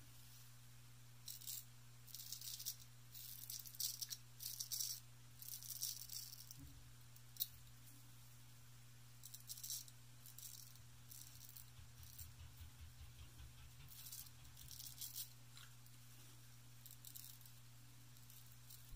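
Wade & Butcher 7/8 Celebrated straight razor cutting through lather and stubble, a faint crisp rasp with each short stroke, the strokes coming in small runs with pauses between, over a steady low hum.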